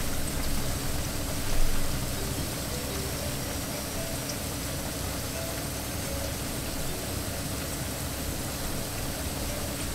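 Ripe plantain slices shallow-frying in oil in a non-stick pan: a steady sizzle.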